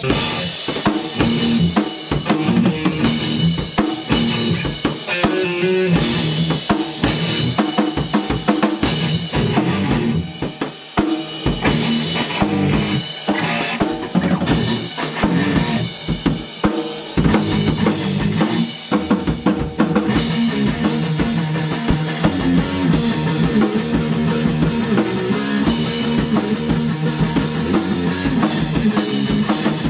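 A rock band jamming, with the drum kit to the fore: kick, snare and rimshot hits over bass and guitar, with short breaks about 11 and 19 seconds in.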